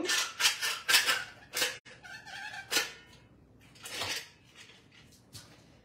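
Caulking gun being pumped, with a series of sharp, sputtering spurts as caulk and trapped air are forced out of the tube, mostly in the first two seconds and once more near three seconds. A short squeal comes a little after two seconds.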